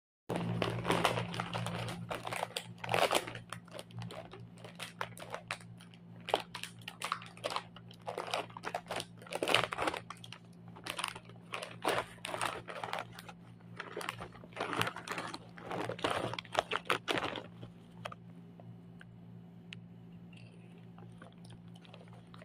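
Plastic snack bags crinkling and rustling in irregular bursts as they are handled and opened. The crinkling stops about seventeen seconds in, leaving only a low steady hum.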